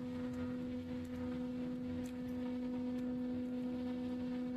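A steady low electrical hum, one even tone with its octave above it, with a few faint clicks of handling over it.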